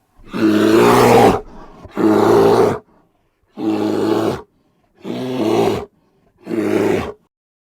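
A bear growling and roaring five times in a row, each a deep rough growl of about a second, with short pauses between them.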